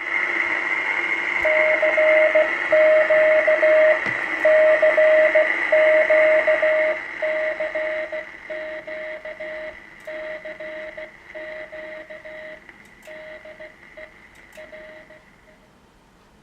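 Receive audio of a uBitx v4 transceiver: a beat tone from a nearby transmitter keyed on and off in long dashes, about one every second and a quarter, over a loud hiss and a lower steady tone. The whole sound fades steadily. The owner calls it bad sound.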